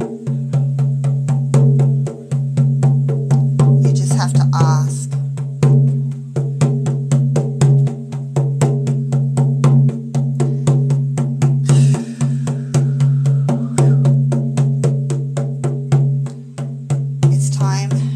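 Large hand-held hide frame drum beaten in a steady, fast journey-drumming rhythm, about four beats a second, each beat with a deep ringing boom.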